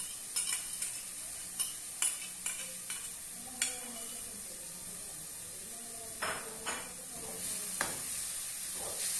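A metal spoon clinks and scrapes against a plate and an aluminium pot as canned sardines in tomato sauce are scraped into the pot and stirred, with short sharp clicks in quick succession at first and longer scrapes later. Under it runs a steady sizzle from the sautéing seasonings in the pot.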